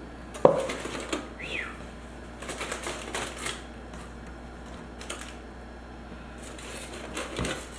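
Aluminium foil crinkling in short crackles as it is folded back from a plate of baked biscuits, with a sharp tap about half a second in.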